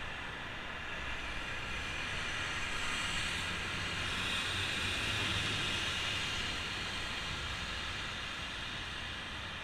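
Steady rush of passing road traffic and riding noise heard from a moving bicycle, swelling for a few seconds midway.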